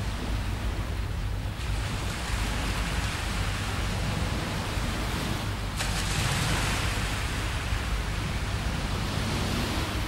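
Gentle surf on a sandy beach: a steady hiss of small waves washing ashore over a low rumble. The hiss swells suddenly about a second and a half in and again near six seconds.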